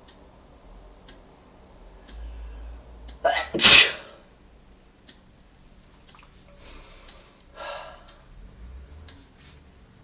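A person sneezing once, loudly, about three and a half seconds in, in two quick parts, followed a few seconds later by two short breaths.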